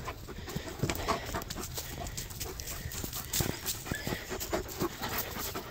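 American Tundra Shepherd dogs panting and scuffling through dry leaf litter close by, with irregular short crackles and snaps.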